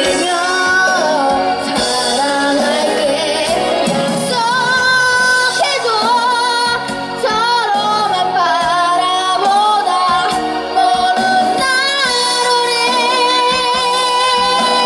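A child singing a song into a microphone over a backing track, both played through stage speakers.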